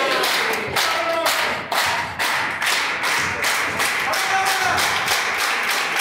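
Wrestling crowd clapping in a quick, even rhythm, with scattered voices shouting over it.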